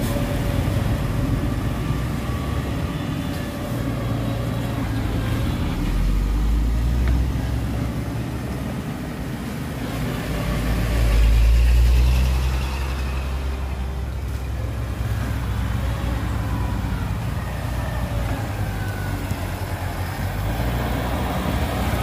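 Diesel engine of heavy earthmoving machinery running, a steady low rumble that swells louder about halfway through.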